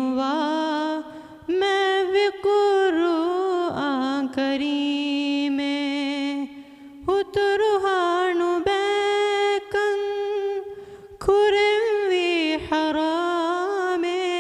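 A teenage boy singing a madhaha, an Islamic devotional song, solo and unaccompanied into a microphone: long held notes with wavering, ornamented pitch, broken by short pauses for breath between phrases.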